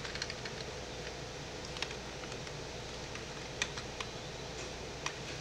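A few scattered clicks from a computer keyboard and mouse as data is entered into a spreadsheet, spaced about a second or more apart, over a steady faint hum.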